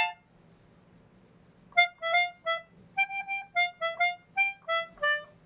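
The little cardboard robot's voice: a quick string of about a dozen short, reedy musical notes at shifting pitches, chattering like a reply. A single short note comes first, then a pause before the run.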